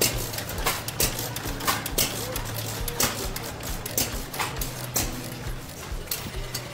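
Vintage stationary engines with heavy flywheels running: a sharp exhaust beat about every half second to a second, unevenly spaced, over a steady low hum.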